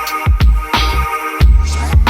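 Background electronic music with a heavy bass beat and sustained synth tones.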